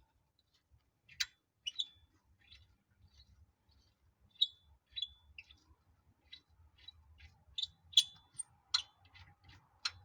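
Hand ratchet clicking in short, irregular strokes as a suspension bolt is backed out, some clicks ringing briefly. The clicks come closer together toward the end.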